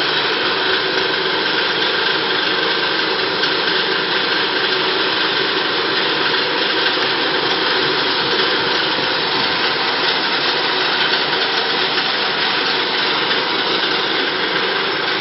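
Roller-type peanut chopping machine running steadily, its electric motor driving the cutter rollers and the spring-mounted grading sieve: a loud, continuous, even mechanical noise with several steady hum tones.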